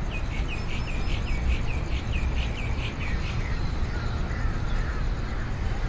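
A small bird chirping repeatedly, about three short chirps a second for the first three seconds, then a few fainter, lower calls, over a steady low background rumble.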